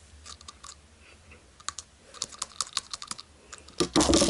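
Irregular light clicks and taps from a small plastic candy package being handled, then a louder burst of rustling and clatter near the end.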